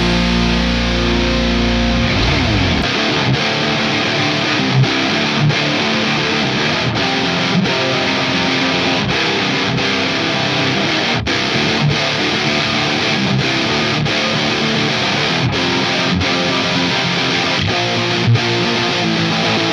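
High-gain distorted electric guitar (an ESP LTD NW-44 with a Bare Knuckle Aftermath bridge pickup) through the drive channel of a Wangs HD-series tube amp, with programmed drums. A held chord rings for about two seconds, then tight riffing runs over a steady beat.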